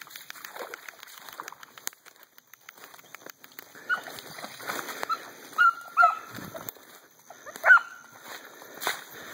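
A hound puppy giving a handful of short, high yelps as she trails a deer, the loudest near the end, over leaves crunching underfoot.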